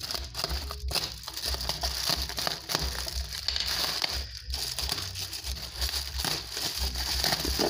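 Bubble wrap and plastic packaging crinkling and crackling in irregular bursts as it is cut open and pulled off a new laptop screen.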